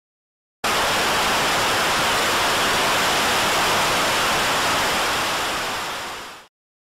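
Static hiss sound effect: a steady noise that starts abruptly about half a second in, then fades and cuts off near the end.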